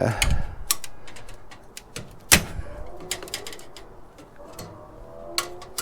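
Irregular sharp clicks and knocks of hard-drive sleds being worked out of the drive bay of a Sun Ultra Enterprise 450 server, the loudest a little over two seconds in and another near the end, with a faint brief squeak toward the end.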